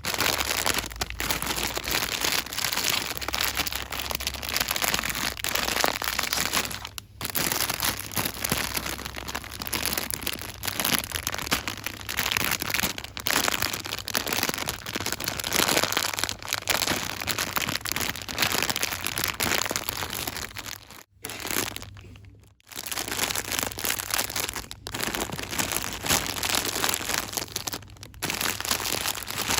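Fast, continuous crinkling and rustling of packaging handled close to the microphone, with short pauses about seven seconds in and again just past twenty-one seconds.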